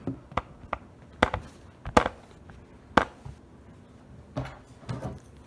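American Lock 5260 padlock being worked with its newly made key: a string of sharp metal clicks and clacks, loudest about two and three seconds in, with softer ones near the end.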